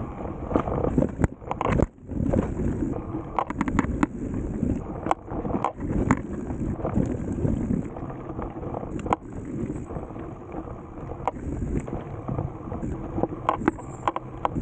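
A bicycle rolling over a gravel road: a rough tyre crunch with frequent irregular clicks and knocks as the bike rattles over stones and bumps, and wind buffeting the microphone.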